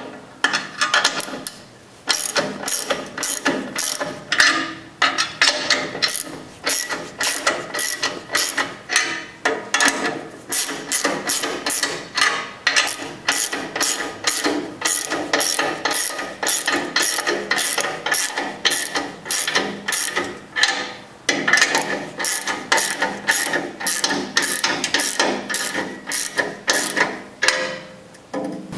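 Hand ratchet clicking in quick repeated strokes as the nuts on U-bolt exhaust clamps are tightened, with a couple of brief pauses.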